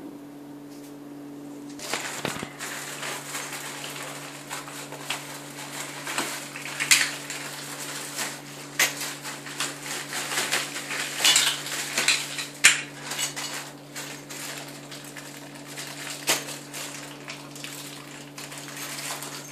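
Plastic wrapping crinkling and rustling as small cradle parts are unwrapped by hand, with irregular clicks and clinks of hard plastic castor wheels and metal screws knocking together. It starts about two seconds in.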